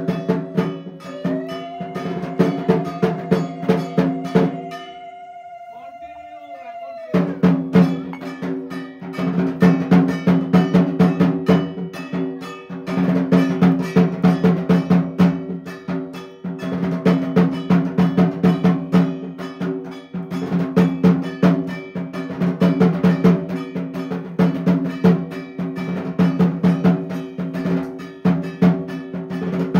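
Clanging metal puja percussion struck rapidly and evenly, several strikes a second, over a steady ringing hum. It is preceded by a long held tone in the first few seconds and a short lull about five seconds in.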